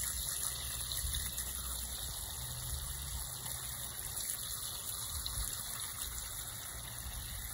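Garden hose running a steady stream of water onto coarse wood-chip mulch, a constant splashing hiss, in a drainage test where the water filters down through the mulch and aggregate base.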